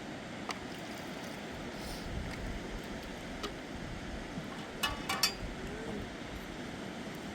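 A few light clinks over a steady rushing background, the loudest a quick cluster of three or four about five seconds in.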